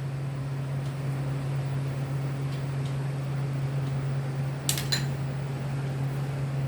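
Steady low hum of a fan running, with two quick clinks of a utensil against a dish about five seconds in.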